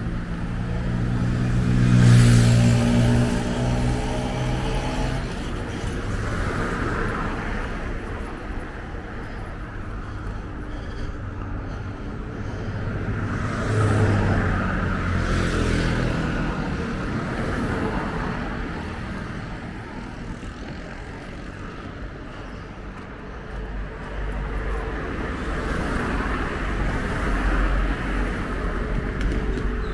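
Street traffic: motor vehicles driving past over a steady rumble, with one passing close about two seconds in and another around the middle.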